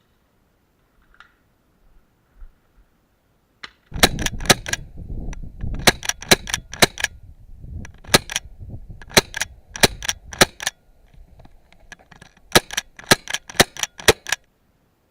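Airsoft gas pistol firing BBs: about two dozen sharp shots in quick strings of three to six, starting about four seconds in.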